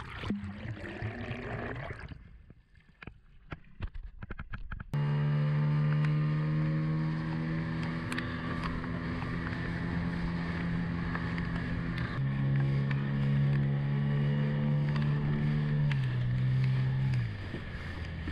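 Muffled underwater noise for the first few seconds, then an outboard motor running steadily at speed. Its pitch steps down partway through and sinks further near the end as the throttle eases.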